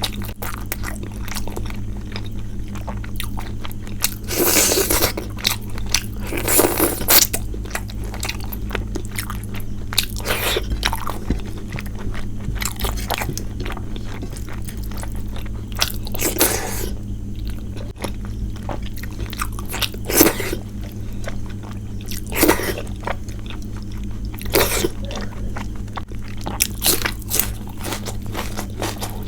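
Close-miked chewing and mouth sounds of a person eating a meal of rice and curries, broken by about seven louder crunchy bites, over a steady low hum.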